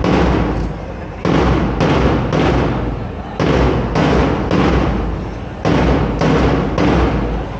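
Heavy drum beats in a steady march-like pattern: three strokes about half a second apart, a short pause, then three more, each stroke ringing on with a long echoing tail.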